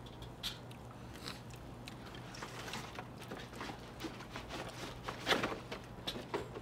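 Quiet eating at a table: scattered light clicks of metal chopsticks against the grill grate and dishes, with chewing. A brief louder noise comes a little past five seconds in.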